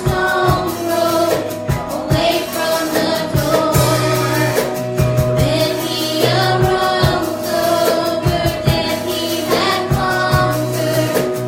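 Worship music: voices singing a hymn or praise song over a band, with a steady held bass note and a regular drum beat.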